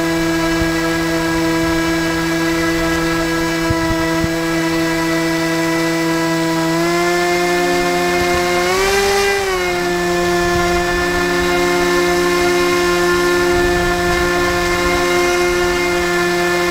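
HK Swampdawg RC airboat's electric motor and air propeller running with a steady whine. The pitch steps up a little about seven seconds in and swells briefly higher around nine seconds as the throttle is opened, then settles back to a steady pitch.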